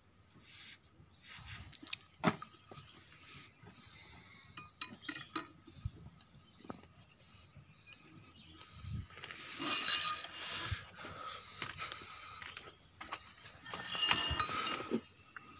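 Steel hand tools clinking and scraping against the piston of a Komatsu PC200 excavator boom cylinder as its new seals are worked into the grooves. The sharpest clink comes about two seconds in, with longer spells of scraping and handling noise near the middle and near the end.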